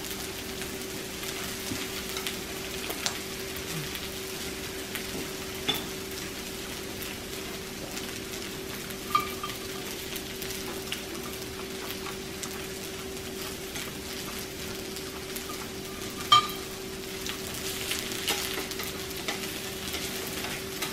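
Meat sizzling steadily on a Lao tabletop grill, with a steady low hum underneath. A few light clinks of utensils come through, the loudest about 16 seconds in.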